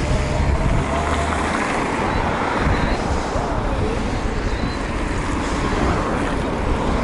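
Steady rushing wind noise on the microphone of a moving bicycle, with road and tyre noise beneath it.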